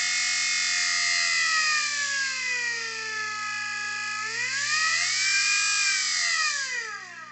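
24-volt DC motor fed through a cheap AC phase-control speed controller, whining with a pitch that slides down, rises again about four seconds in, then falls near the end as the speed is turned down, up and down. Under it runs a steady low hum with a high hiss.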